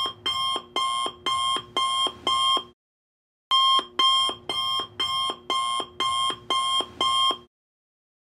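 Electronic alarm-clock beeping: a fast run of identical beeps, a little more than two a second. It breaks off for under a second about three seconds in, then resumes and stops about seven and a half seconds in.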